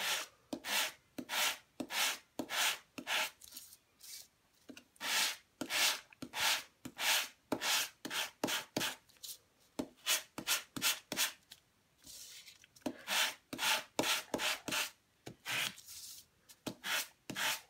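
Sanding block rubbed back and forth over embossed patterned paper in short strokes, about two a second, with a couple of brief pauses. It is scuffing the top layer of paper off the raised embossing to give a two-toned effect.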